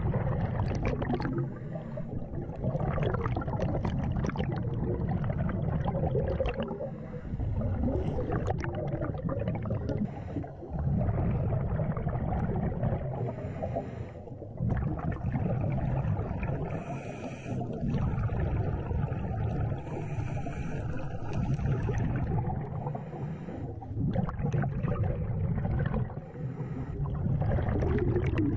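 Scuba diver's regulator breathing heard underwater: a low bubbling rumble of exhaled air that keeps returning in stretches of a few seconds, broken by short quieter gaps, with brief hissing in the middle.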